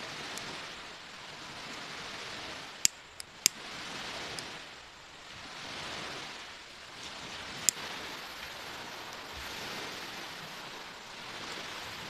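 Surf washing on the shore, swelling and fading every two to three seconds. Over it come sharp clicks from a butane torch lighter's igniter: three close together about three seconds in, and one more near eight seconds.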